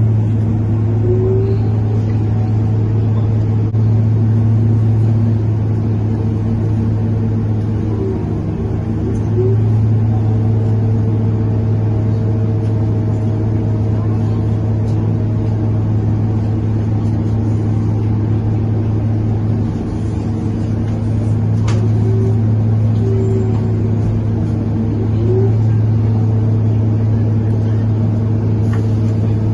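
Inside a moving Scania K230UB bus: a loud, steady, low hum from its unusually loud radiator fan, over the five-cylinder diesel engine, swelling a few times with short squeals on top.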